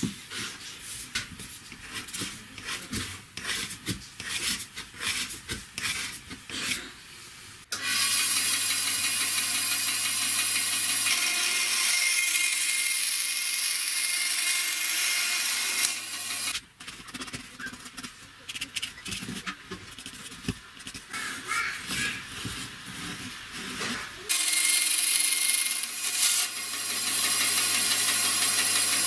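Benchtop band saw running and cutting through PVC pipe: a steady low hum under a loud hiss, once for about eight seconds and again for the last five. Before and between the cuts, rubbing and knocking of the plastic pipe being handled.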